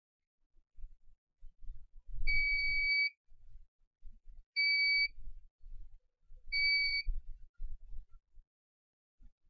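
Three electronic beeps at one steady high pitch, the first about two seconds in and a little longer than the other two, with faint low knocks in between.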